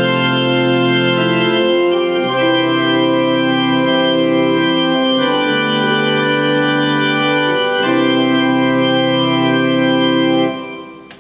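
Yamaha YPT-230 (PSR-E233) digital keyboard playing its organ voice: a few sustained chords, changing every two to three seconds, with a little reverb and echo, dying away near the end.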